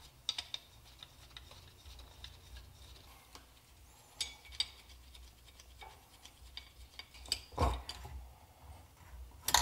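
Scattered light metallic clicks and taps of a 10 mm wrench working the cylinder head bolts loose on a two-stroke engine, with a couple of louder knocks near the end.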